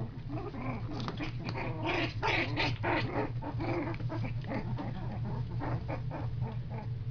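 Blue heeler × terrier/poodle mix puppies play-fighting, giving small growls and yips in quick succession, busiest about two to three seconds in.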